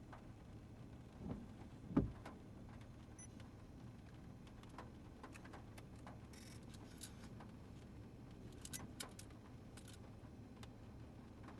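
Faint steady low rumble with two dull thumps just under two seconds in, the second louder, and scattered light clicks and ticks later on.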